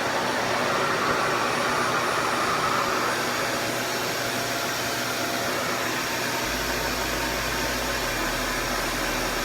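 RevAir reverse-air hair dryer running steadily, a loud vacuum-cleaner-like rush of air as it sucks hair into its wand and dries it.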